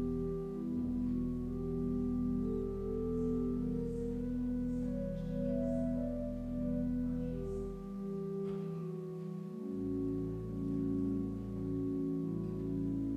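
Church organ playing slow, sustained chords over deep pedal bass notes. The bass drops out for a moment about two-thirds of the way through, then comes back.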